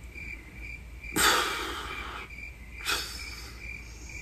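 Crickets chirping in a regular pulse, about three chirps a second, over a low hum; an edited-in sound effect that starts abruptly at a cut. Two louder rushes of noise come about a second in and near three seconds.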